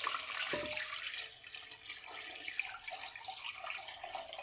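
Water poured in a steady stream from a jug into a wok, splashing onto raw chicken pieces as the pan fills for stock.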